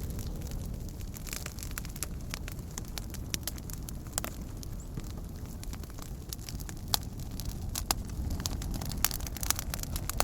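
Campfire burning: a steady low rush of flames with frequent sharp crackles and pops from the burning wood, a few pops louder than the rest in the second half.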